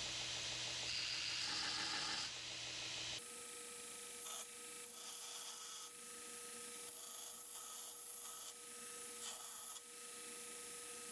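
Belt grinder running as a small welded steel die is held against the abrasive belt, giving a steady rasping hiss. The hiss drops briefly every couple of seconds as the piece is lifted off. A low hum cuts out about three seconds in.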